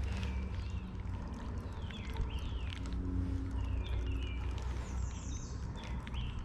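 Creek water flowing with a steady low rush, with songbirds repeating short slurred calls over it and a few small splashes or clicks.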